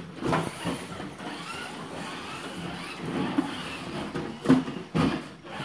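Electric motors and geared drivetrains of RC scale crawler trucks whirring as they drive and shove against each other on carpet, with a couple of sharp knocks near the end.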